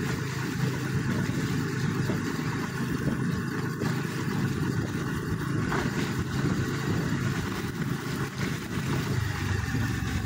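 A vehicle travelling steadily along a wet road: engine and road noise make a continuous low rumble.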